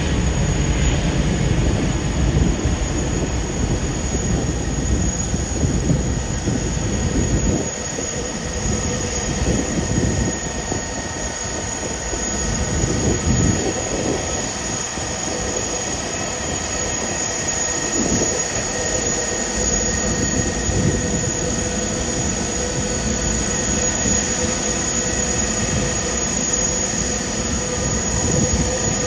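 Airliner jet engines running at taxi power, a steady rumble with a high, even whine over it. The deep low rumble drops away about seven seconds in, while the whine carries on.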